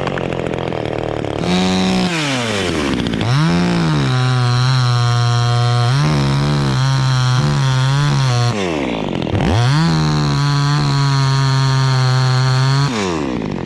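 Two-stroke chainsaw held at high revs while cutting teak, with the engine note dropping and climbing back twice, about two seconds in and again around nine seconds, then falling away near the end.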